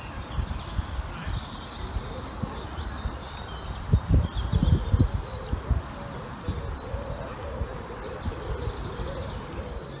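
Outdoor ambience with small birds chirping over a steady background hiss. Low rumbling thumps come in bursts, loudest about four to five seconds in.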